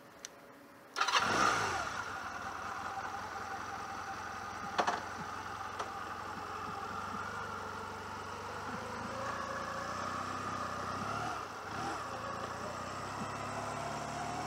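A 1996 Honda CMX250C Rebel's small parallel-twin engine starts about a second in, catches at once and runs steadily. There is a short knock a few seconds later, and the engine keeps running as the motorcycle moves off near the end.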